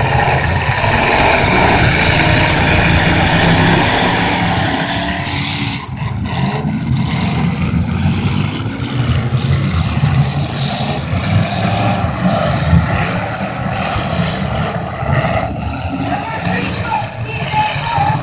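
Several full-size demolition derby cars with engines revving hard, rising and falling, as they drive and ram in the mud, with a few sharp bangs of impacts, the loudest about two-thirds through.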